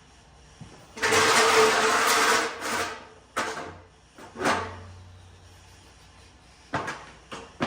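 A loose fiberglass truck hood being worked off by hand: a long scraping noise about a second in, followed by several separate knocks and bumps.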